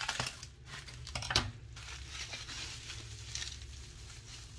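Bubble wrap crinkling and rustling as it is unwrapped by hand, with a sharper crackle about a second and a half in and quieter rustling after.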